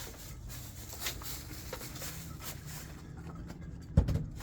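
Hand-handling noise from solar module leads and connectors: scattered light clicks and rustles, then one sharp knock about four seconds in.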